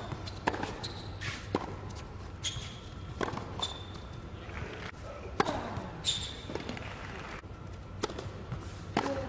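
Tennis balls struck by rackets in a baseline rally on an indoor hard court: sharp pops that ring in the hall, roughly one every second, the loudest about five seconds in.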